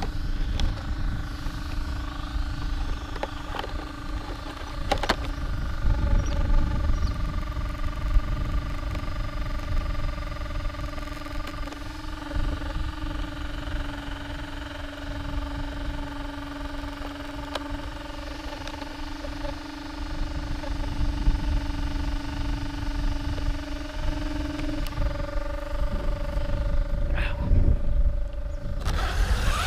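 Wind rumbling on the microphone over a steady whine, with a few sharp clicks and knocks as hands work on an Arrma Typhon RC buggy. Right at the end the steady whine drops out and a rising whine begins.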